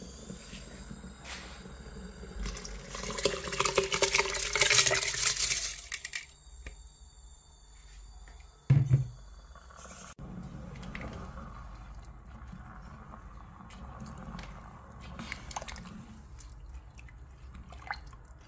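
Washed basmati rice tipped from a basket into a multicooker pot of broth: a few seconds of rustling and splashing. A single low thump follows a few seconds later, then fainter bubbling of simmering liquid.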